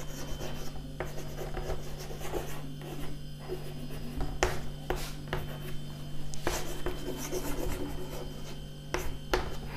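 Chalk writing on a chalkboard: irregular scratching strokes with a few sharp taps as the chalk strikes the board, over a steady low hum.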